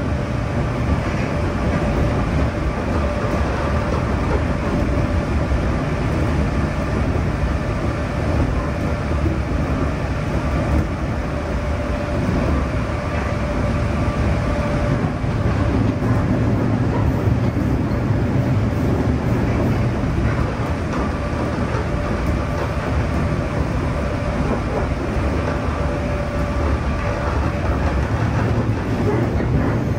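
Interior running sound of a JR East 211-series 0-subseries electric multiple unit: a steady rumble of wheels on rail and the car body, with a faint steady whine from the traction motors and gearing.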